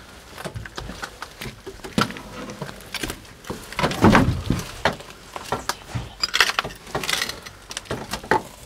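Rustling and scraping as a person climbs down through a narrow concrete opening filled with dry leaves, clothing and a backpack brushing the walls, with irregular knocks and small clinks of gear. The loudest bump comes about four seconds in.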